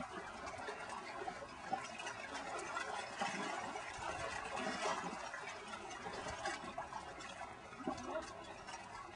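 Water splashing and churning as a swimmer moves through a lake, with many small irregular splashes.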